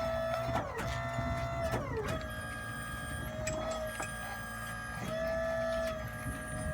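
Dishwashing machine's motor whining steadily, with its pitch sliding down and breaking twice near the start amid a few clicks, then settling back to a steady whine.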